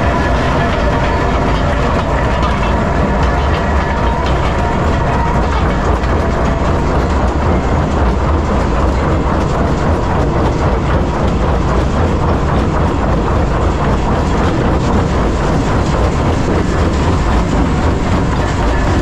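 Metso 130 jaw crusher and its vibrating feeder working blasted limestone: a loud, steady low rumble under a dense, continuous clatter of rock.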